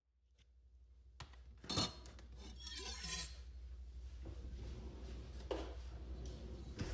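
A sharp click, then a louder clink, then a short rattling clatter like small hard objects, over a steady low hum.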